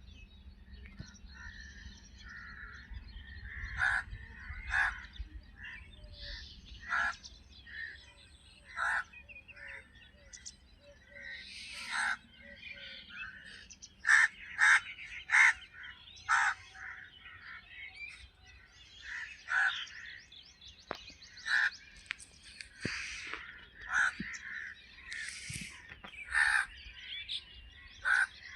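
Crows cawing again and again, short separate calls, with smaller birds chirping and twittering between them; the loudest caws come in a quick run of four about halfway through.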